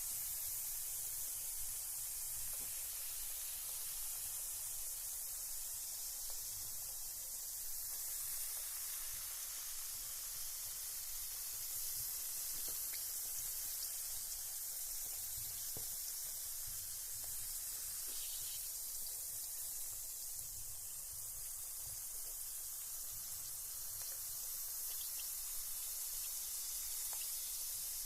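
Carbonated bath bomb fizzing in bath water: a steady high hiss of fine bubbles with a few faint ticks here and there.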